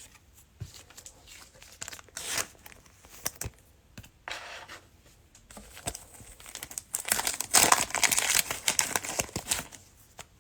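Cellophane wrapper of a trading-card pack being crinkled and torn open, with scattered short crackles and taps at first and a louder, dense stretch of crinkling about seven seconds in that lasts nearly three seconds.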